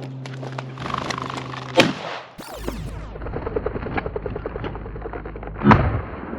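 Two shotgun shots, the first a little under two seconds in and a louder one near the end.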